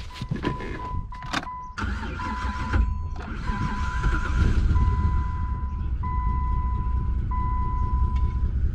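Jeep Commander engine cranked and started, then running with a steady low rumble; the engine has a cylinder misfire being diagnosed. A vehicle warning chime beeps repeatedly throughout.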